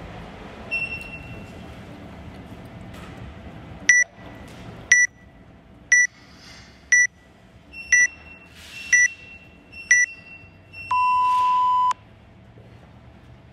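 Workout countdown timer beeping: seven short beeps, one a second, then a single longer, lower beep that signals the start of the workout.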